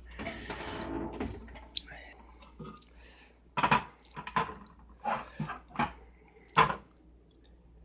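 Handling noise from hashboards being set into a dishwasher: a short hiss, then a series of separate knocks and clatters.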